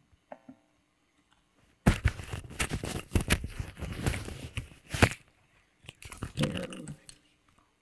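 Crackling, rustling noise: a dense run of irregular crackles for about three seconds, then a shorter, lower burst near the end.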